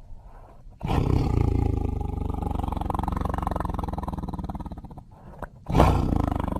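Tiger roaring: after a low, quiet rumble, a long, rough roar starts about a second in and lasts about four seconds. A second loud roar begins near the end.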